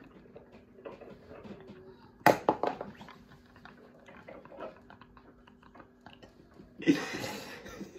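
Stifled, mostly silent laughter from two young men: quiet breathy gasps and snorts, with a sudden louder burst about two seconds in and a breathy outburst of laughing near the end.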